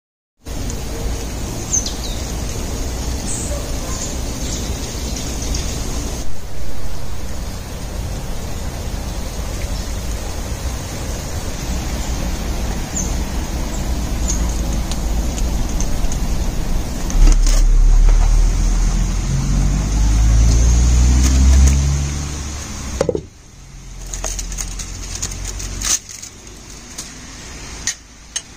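Outdoor ambience dominated by steady wind noise on the microphone, with a few faint bird chirps. About two-thirds of the way in a low motor rumble swells and rises in pitch, then cuts off suddenly, leaving a quieter stretch with a few sharp knocks.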